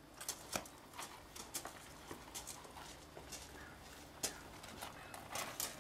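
Faint, irregular footsteps crunching and knocking on bark mulch and wooden garden steps, heard as scattered light clicks.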